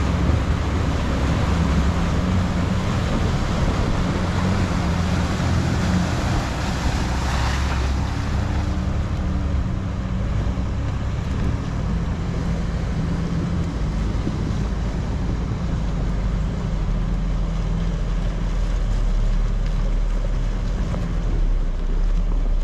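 Jeep Wrangler TJ engine running as the Jeep drives through a shallow creek and out over gravel, with water rushing and splashing, loudest over roughly the first eight seconds, and wind buffeting the microphone.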